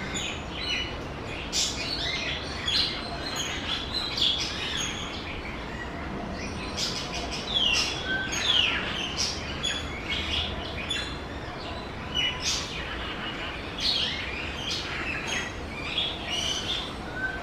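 Several birds chirping and calling at once, a dense mix of short high chirps and quick falling whistled notes.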